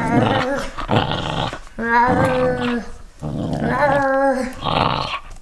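Corgi growling in a string of play growls with short pauses while tugging on a rubber toy.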